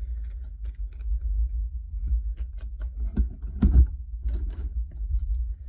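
Fishing tackle packages being handled: scattered light clicks and crinkles of plastic packaging, with a few louder knocks, over a steady low rumble.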